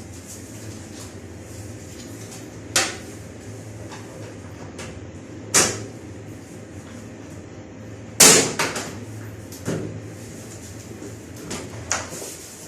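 Hard clunks and knocks of washing-machine parts being handled and fitted back during reassembly: about five separate knocks, the loudest about eight seconds in followed by a short rattle, over a steady low hum.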